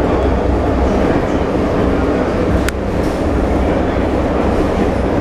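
Steady rumble of an M47 diesel locomotive coupled just ahead, heard from inside the MÁV Bz passenger car it hauls, with a single sharp click about two and a half seconds in.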